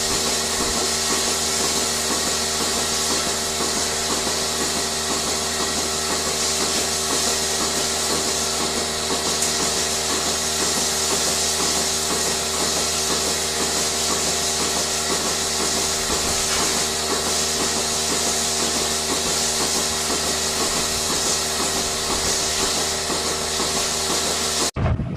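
Machinery running steadily, with several constant hums and an even, fast pulsing. It cuts off suddenly near the end.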